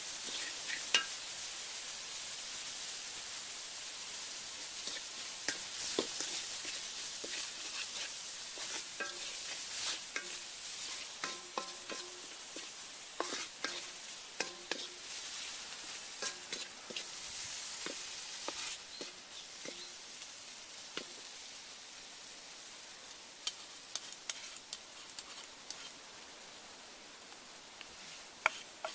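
Pork frying in a wok, a steady sizzle that slowly dies down, with a wooden spatula stirring and scraping against the metal pan in short irregular clicks.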